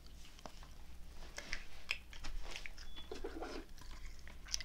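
A jelly bean being chewed close to a microphone: many small mouth clicks and smacks.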